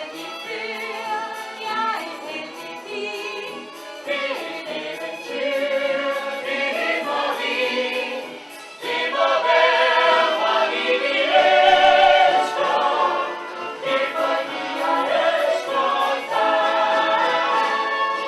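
A chorus of voices singing a musical-theatre number with vibrato, swelling louder about nine seconds in.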